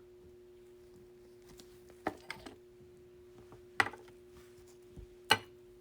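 A few light, sharp taps and clicks of trading cards and plastic card protectors being handled, four in all, over a faint steady hum.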